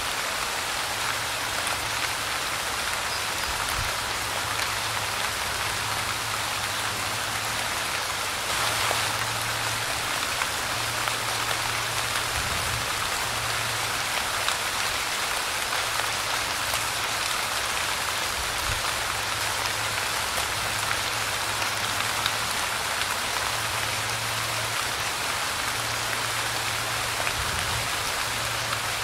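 Light rain falling steadily, an even hiss of many small drops with scattered individual drop ticks.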